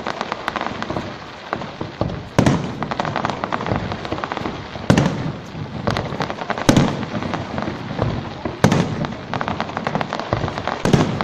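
Fireworks going off: about five loud bangs roughly two seconds apart, with rapid crackling between them.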